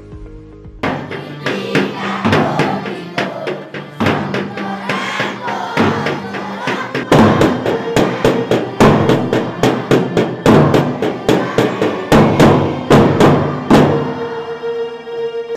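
School marching drums, a bass drum struck with a padded mallet and snare drums with sticks, beating a quick, uneven rhythm. The drumming starts about a second in and gets louder about halfway through, with some sustained musical tones underneath.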